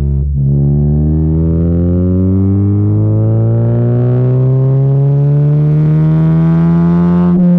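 A 9th-generation Honda Civic with an Invidia exhaust accelerating hard through a gear. The engine note climbs steadily for about seven seconds, between a short break just after the start and another near the end, where the pitch drops.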